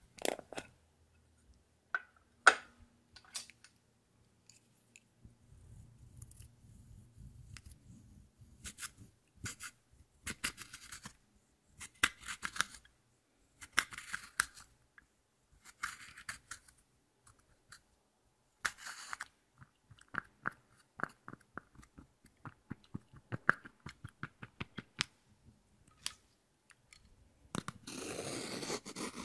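Pressed powder being scraped and crushed inside its compact with a thin metal tool: irregular short scratchy strokes that grow into a denser, louder crumbling scrape near the end. Two sharp clicks from the plastic compact case come in the first few seconds.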